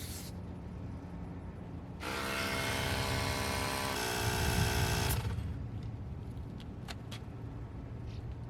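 Small motor-driven air compressor or tyre inflator running in one burst of about three seconds, whining with a change of pitch partway through, as it pumps up the aircraft's flat-sitting tyres.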